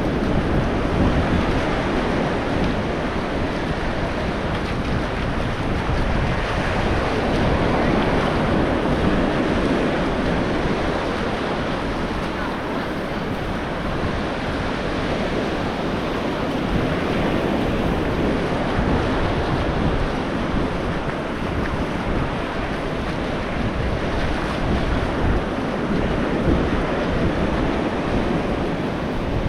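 Ocean surf washing steadily onto the beach, with wind buffeting the microphone as a low rumble.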